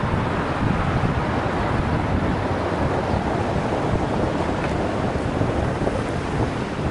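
Wind rushing over the microphone of a Sony Action Camera riding on a moving bicycle, a steady low rumbling noise with no breaks.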